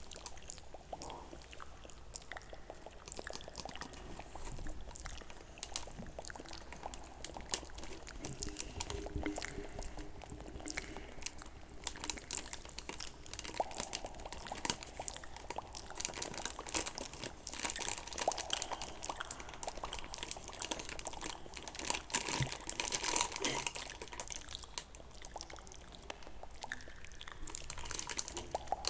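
Kinetic sand being handled, crumbling and trickling with a gritty crackle of many small clicks, louder in a few stretches.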